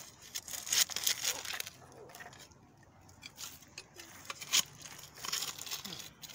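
Small hand shovel scraping and digging into loose soil and dry leaves, in irregular scratchy crunching bursts, with one sharper crunch about four and a half seconds in.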